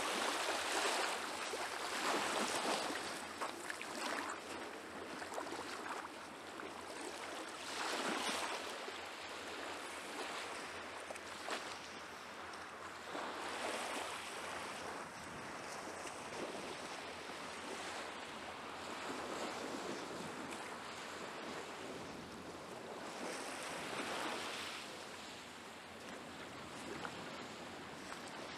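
Small Baltic Sea waves lapping and washing onto a sandy shore, the wash swelling and fading every few seconds.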